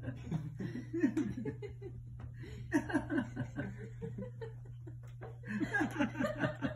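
A person laughing, chuckling in several short bursts.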